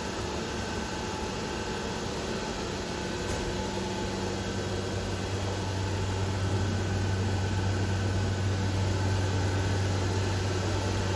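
Omnitech Chief 5x12 flat-table CNC router running idle between cuts, a steady mechanical hum with a low drone, getting slightly louder about six seconds in. No cutting is heard.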